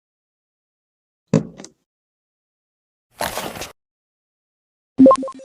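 Unboxing handling sounds from a watch box and its packaging: a sharp knock followed by a light click, a brief rustling slide a couple of seconds later, and near the end a louder short knock that rings with a clear pitch.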